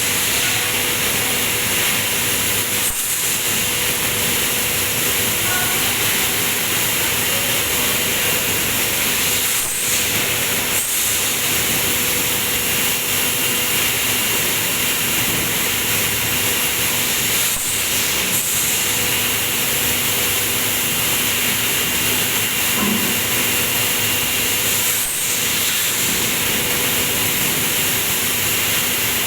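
Industrial stainless-steel bucket washing machine running: its water spray jets give a loud, steady hiss over a constant machine hum.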